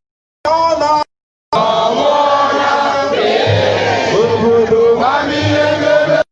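A crowd singing a song together in chorus, with many voices overlapping over a low accompaniment. The singing comes in cut-together clips: a brief snatch broken by abrupt silent gaps near the start, then a longer unbroken stretch that cuts off suddenly at the end.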